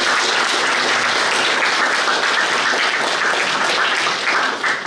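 Audience applauding steadily, fading near the end.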